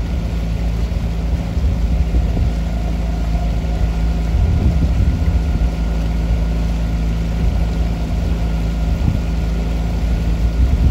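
Boat engine running steadily, a constant low drone with a rumble beneath it.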